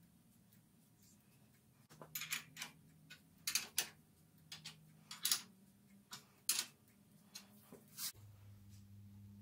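Box-end wrench on the nuts of the mill table's hold-down clamps: a run of irregular sharp metal clicks and taps as the clamps are tightened down. Near the end a low steady hum starts.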